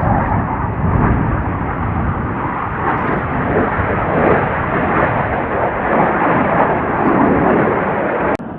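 Loud, steady jet-engine roar of Blue Angels F/A-18 Super Hornets in flight, cutting off abruptly near the end.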